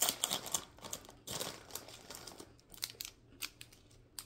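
Crinkly candy wrappers being handled and opened: small individually wrapped Super Lemon hard candies. Dense crackling for the first second or so, then sparser, quieter crinkles.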